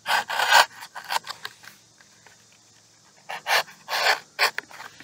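Small knife slicing through the corrugated cardboard at a box's corner, a series of short rasping strokes: one group in the first second, a few single strokes after it, and another group about three and a half to four and a half seconds in.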